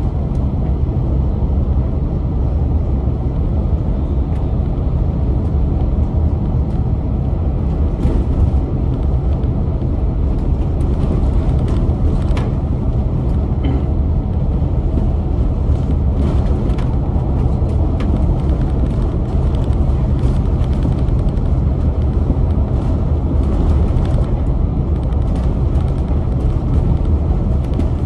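Volvo B8L double-decker bus with its Volvo D8K diesel engine running steadily under way, heard from inside as a constant low rumble of engine and road noise. Light clicks and rattles come and go through it, more of them after the first few seconds.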